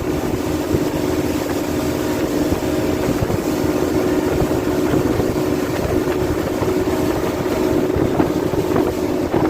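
Speedboat engine running steadily at speed, with wind on the microphone.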